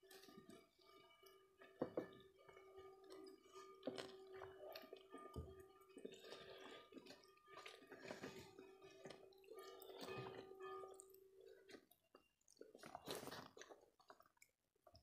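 Faint eating sounds: chewing, with soft clicks and scrapes of fingers mixing rice on plates. Under them runs quiet background music with held notes that stops about twelve seconds in.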